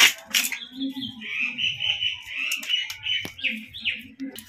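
A sharp knock as a chunk of maan kachu (giant taro) is pressed down onto a boti blade. Then, starting about a second in, a bird chirps continuously in quick high notes for about three seconds.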